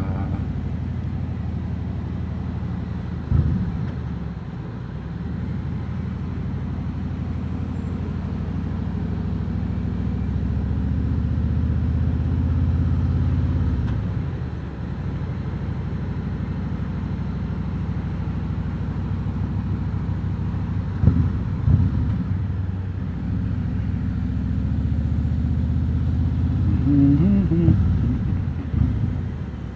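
Harley-Davidson Road King Special's V-twin engine running in slow traffic, a steady low rumble that swells and eases, with a few short surges of revs.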